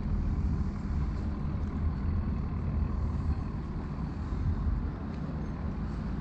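Steady low rumble of city street noise with traffic.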